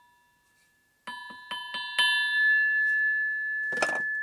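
Steel stump grinder part, taken for tool steel or higher-carbon steel, tapped four times in quick succession about a second in. It rings like a bell with a clear, long-sustaining tone, and a brief burst of noise comes near the end.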